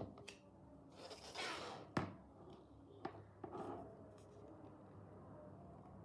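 Faint handling sounds: a few sharp clicks and taps, with two short rustling swishes in between.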